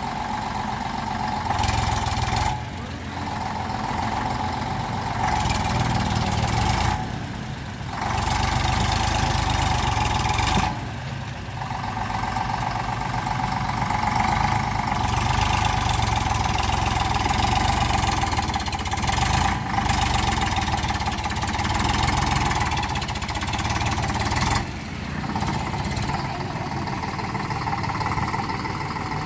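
Eicher 485 tractor's three-cylinder diesel engine running under load as its front loader pushes soil, the engine note rising and then dropping back several times.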